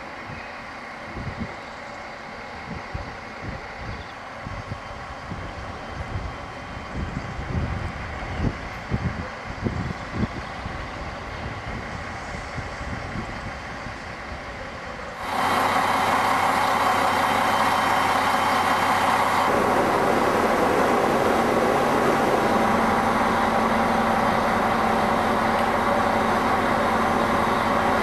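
A diesel railcar pulls in, faint at first over low thumps of wind on the microphone. About halfway through, after a sudden jump in level, its engine runs loud and steady right alongside, the tone shifting slightly a few seconds later.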